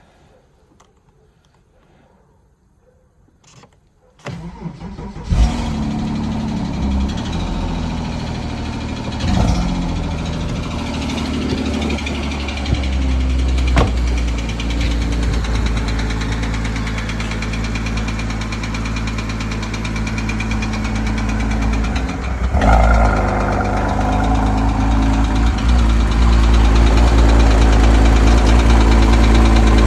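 A 2008 Porsche Cayman S's 3.4-litre flat-six is started about four seconds in and settles into a steady idle, growing a little louder about two-thirds of the way through. The idle carries the ticking that the owner takes for a sign of bore scoring.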